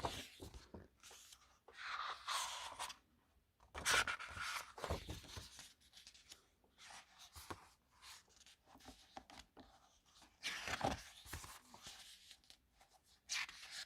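Pages of an album photobook being turned by hand: paper swishing and rustling a few times, with small handling clicks in between.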